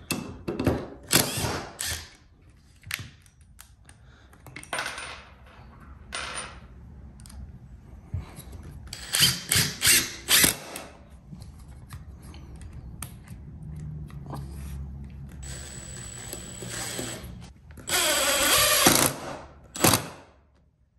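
Makita brushless cordless impact driver with a square-drive bit driving screws into lumber: clicks of screws being handled and set, short bursts of the driver, a longer quieter run with a thin motor whine in the middle, then the loudest burst of impact hammering near the end.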